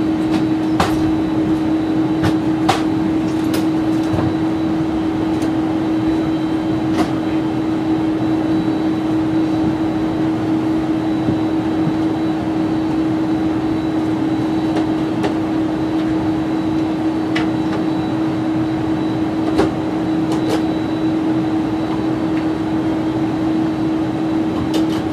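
Steady cabin noise inside a Boeing 747-400 moving along the apron: a constant hum with a strong unchanging drone, and a few faint clicks at scattered moments.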